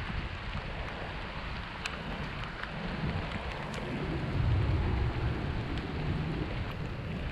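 Wind and rain on the camera's microphone: a steady hiss with scattered light ticks, and a low rumble that swells about four seconds in and eases off again.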